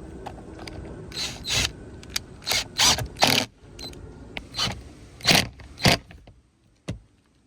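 Cordless drill driving a door-panel screw in about eight short trigger bursts, followed by a single sharp click near the end.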